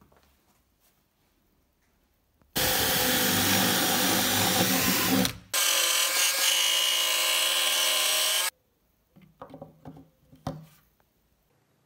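Electric jigsaw cutting plywood in two runs of about three seconds each, with a brief stop between, its motor whining steadily under the blade noise. A few light knocks follow near the end.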